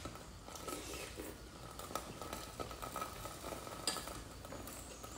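Quiet eating at the table: spoons and forks clinking against ceramic bowls, with faint chewing and slurping of noodles and one sharper clink about four seconds in.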